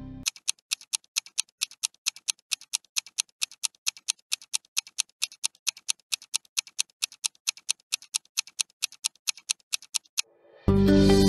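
Clock-ticking sound effect marking a 10-second countdown: sharp, even ticks at about four a second for ten seconds. The ticks stop, and music comes in near the end.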